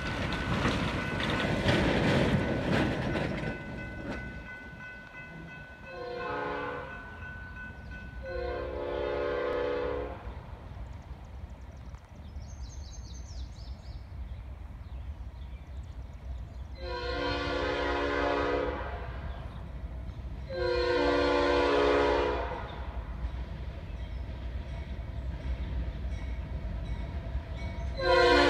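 A semi truck passes loudly over the crossing at the start. Then the approaching Norfolk Southern diesel freight locomotives sound their multi-note air horn for the grade crossing: two blasts, a pause, two longer blasts, and a fifth starting near the end, over a low engine rumble that grows as the train nears.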